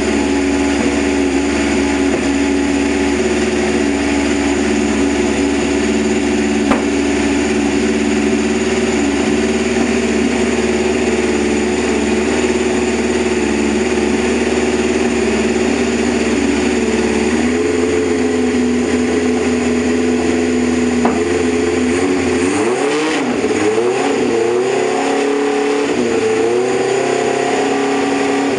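A freshly built engine running on a heat cycle: it idles steadily, its note shifts slightly about two-thirds of the way through, then it is revved in several quick blips near the end.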